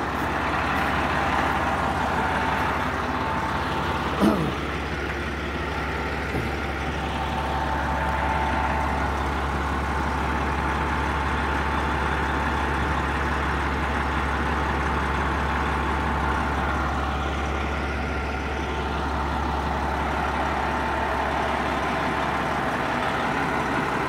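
Fire engine ladder truck's diesel engine idling steadily, a low, even rumble. A brief, sharp pitched sound cuts in about four seconds in.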